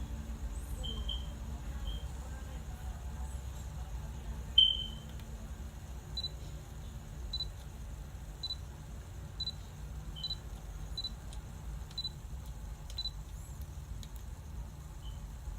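Canon EOS 200D (Rebel SL2) DSLR beeping: short high beeps with faint clicks, one loud beep about four and a half seconds in, then a run of fainter beeps about once a second.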